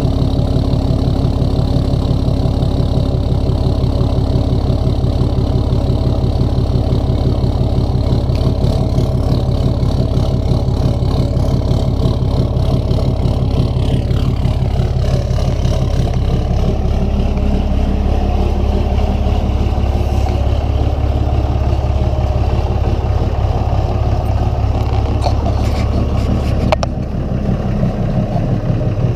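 2015 Ram Cummins 6.7-litre inline-six turbo diesel idling steadily through a 4-inch straight-piped exhaust with its EGR deleted, a fast, even exhaust pulse. A faint falling whine comes about halfway through, and the sound changes suddenly near the end.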